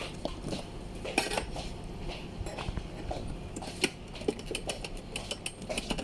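Irregular small metallic clicks and clinks of a screwdriver and loose screws working on a car head unit's metal case.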